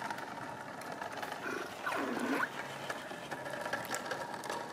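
A Kid Trax Rideamals toy ride-on horse plays an electronic horse sound through its small speaker once, about two seconds in, its pitch dipping low and rising again.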